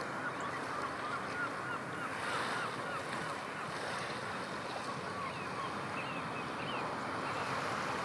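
Steady wind and surf noise, with two runs of short, quick calls from ruddy turnstones, one about two seconds in and another around six seconds in.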